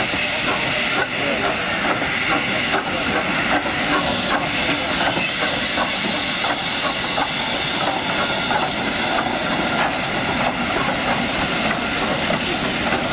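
Victorian Railways K-class steam locomotive K163 moving slowly past, with a steady hiss of steam and irregular clicks and knocks from its running gear and wheels on the rails.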